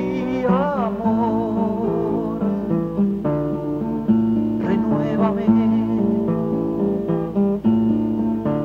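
Folk song: a man's held, wavering sung 'ay' that ends about a second in, then acoustic guitar playing a plucked accompaniment between sung lines.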